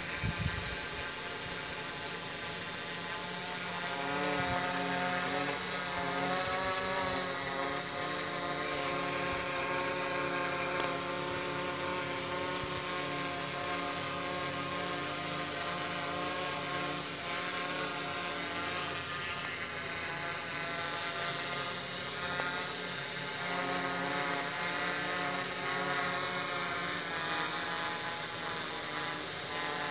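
F450 quadcopter's brushless motors and propellers whining as it hovers, several tones drifting slightly up and down in pitch as the motors adjust speed.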